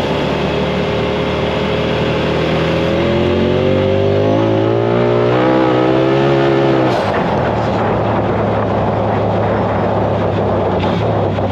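Polaris side-by-side engine accelerating, its pitch climbing steadily for about seven seconds. It then drops off throttle and runs on at a lower, steady speed with rougher noise.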